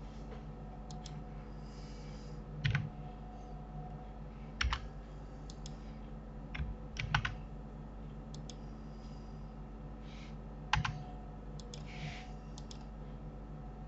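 Computer keyboard keys and mouse buttons clicked in scattered single taps and small clusters, as shortcut keys are pressed, over a steady low hum.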